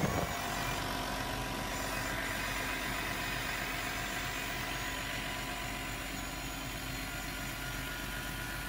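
Electric linear actuators of a homemade 1/5-scale excavator running: a steady motor-and-gearbox whine as the arm and bucket move slowly through the soil. A louder, rougher noise stops just after the start.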